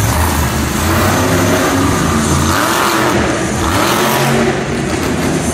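Monster truck's supercharged big-block V8 revving hard, its pitch rising and falling over and over as the truck drives and climbs a dirt jump.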